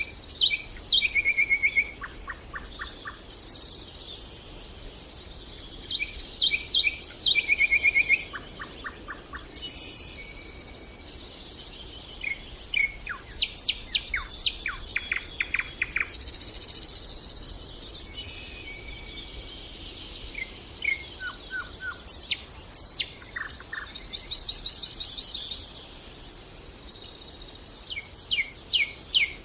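Nightingale singing in a string of varied phrases: fast runs of repeated clicks, trills and whistled notes, with a longer buzzy rattle a little past the middle.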